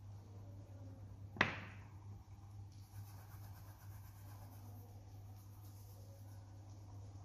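A single sharp knock about a second and a half in, dying away quickly, over a steady low electrical hum.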